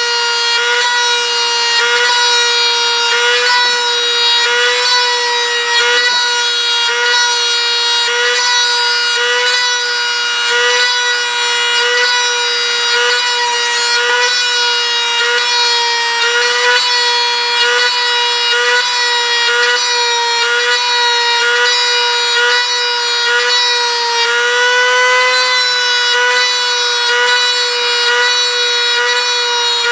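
Dremel rotary tool spinning a brass tube with a steady high whine. Its pitch sags briefly at a regular pace as the tube is pressed into the primer to mark each scale rivet, and it rises for a moment about 25 seconds in.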